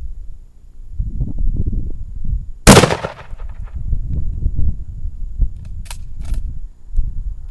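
A single shot from a .303 British Enfield rifle, a sharp report with a short fading tail, about three seconds in; the round hits a water-filled 2-liter bottle. A low, uneven rumble runs underneath, and two faint clicks come a few seconds after the shot.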